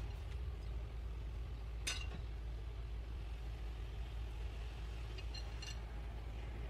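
Steady low engine rumble, with a sharp click about two seconds in and a few lighter clicks near five seconds.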